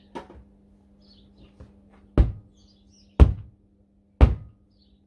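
Sledgehammer striking a tractor tyre by its steel rim to break the bead loose. A light knock comes first, then three heavy blows about a second apart.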